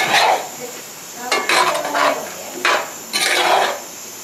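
A metal utensil stirring and scraping cubed pumpkin against the side of a large aluminium pot, in about five separate strokes with a faint metallic ring.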